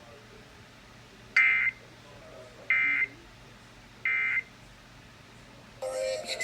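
Three short bursts of EAS (SAME) end-of-message data tones, a harsh buzzy warble about a third of a second each, spaced a little over a second apart, marking the end of the alert. A brief jumble of tones follows near the end.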